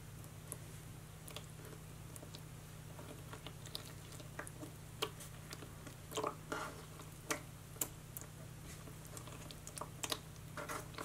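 Faint sticky clicks and crackles of crumbly gold glitter slime being pressed and squeezed by hand, scattered about once a second. The slime is tearing into pieces rather than holding together.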